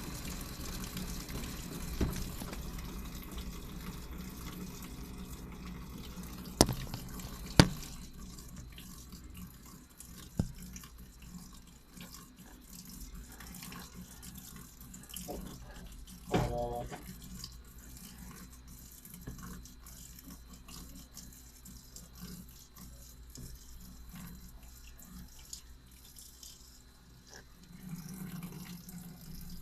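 Washing machine taking in water partway through a full wash cycle: a steady rush of running water with a low hum, broken by a few sharp clicks, the loudest two about seven seconds in.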